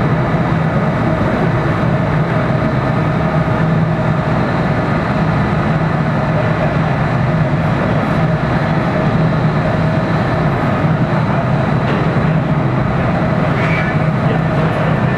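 Glass furnace burners and a combustion blower running steadily: a constant low hum under a dense rushing noise.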